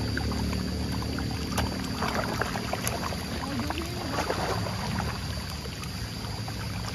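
Churning splashes and slaps of water from a dense mass of catfish thrashing at the surface as they crowd in to feed.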